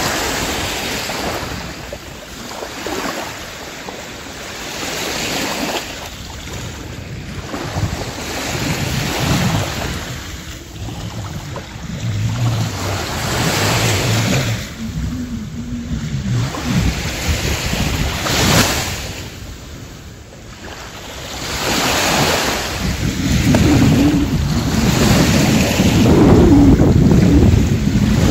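Small sea waves washing up on a sandy beach, the surf swelling and ebbing every few seconds. Wind buffets the microphone with a low rumble, heavier in the last third.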